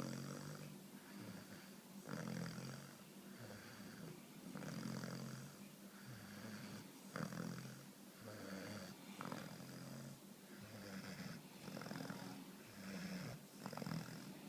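A sleeping puppy snoring, with one snore about every two and a half seconds.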